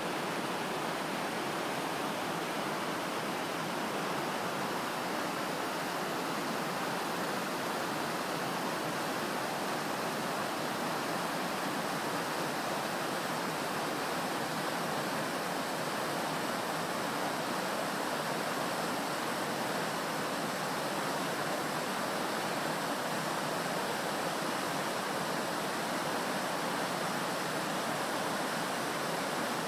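River rapids: white water rushing over and around boulders in a steady, unbroken wash of sound.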